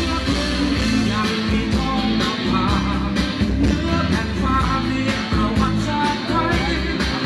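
Music with a singer and a steady drum beat.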